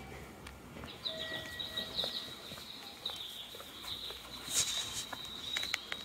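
High, bird-like chirping that starts about a second in and carries on steadily, with a person's footsteps ticking under it.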